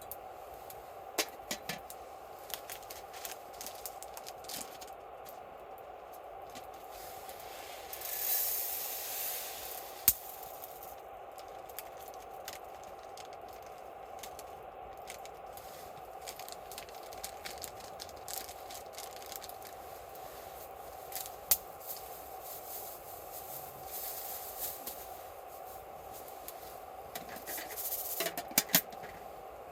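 Wood campfire crackling, with scattered sharp pops of varying loudness, a short hissing swell about a third of the way in, and a few brief scraping, rattling handling sounds.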